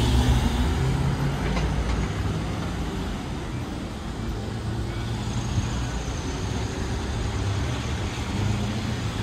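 Street traffic: a van drives past close by at the start, its engine sound fading over the first few seconds, then a steady hum of road traffic.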